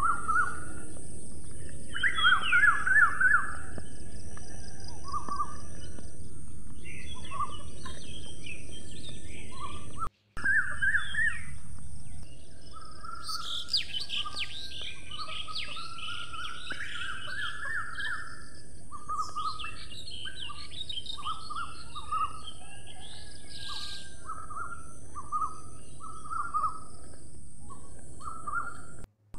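Small birds chirping and chattering in quick runs of short high notes, loudest about two seconds in and again from about a third of the way through, over a steady high hiss.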